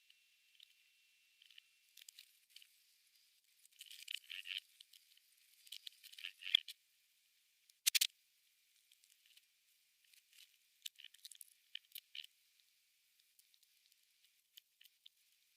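Faint, irregular rustling and small clicks, busiest about halfway through, with one sharper crackle about 8 seconds in.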